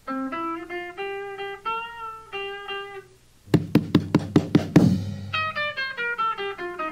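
Electric guitar playing a rockabilly lick: a picked single-note line with one bent note, then a quick run of about eight sharp strummed chords, then a falling run of picked notes.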